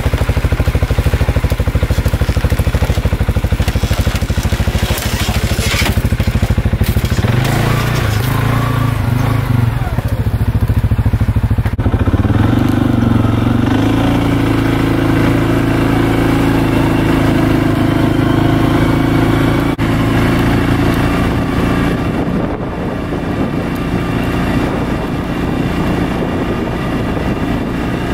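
2019 CFMoto 600 ATV's single-cylinder engine running, first as it is backed down loading ramps and then while it is ridden over snow. The engine note steps up about 7 seconds in and again around 12 seconds in.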